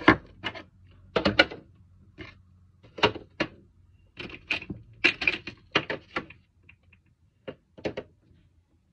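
Irregular plastic clicks and knocks as skincare bottles and tubes are set into the compartments of a plastic storage box and handled against its sides.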